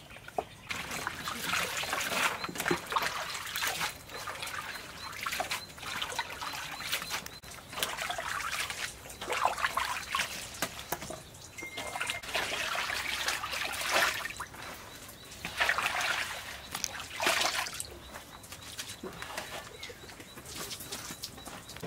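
Water pouring and splashing in irregular bursts of a second or two, with short pauses between.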